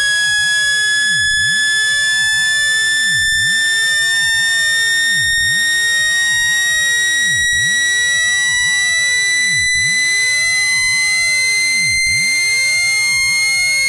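Synthesized speaker-cleaning tone, used to shake water and dust out of a phone speaker: a loud, shrill, steady tone that climbs slowly in pitch, with fainter tones sweeping up and down about every two seconds beneath it.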